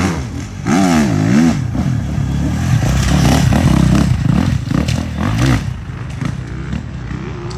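Enduro dirt bike engine revving up and down in repeated throttle bursts as the bike rides past close by, loudest through the middle.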